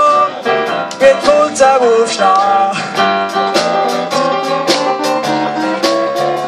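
Small live band playing a song: strummed guitar with melody notes over a drum kit, with regular drum and cymbal strikes.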